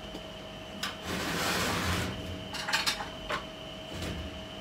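Kitchen handling noises: a short rush of noise about a second in and a few sharp clicks and knocks, over a steady high hum from kitchen equipment.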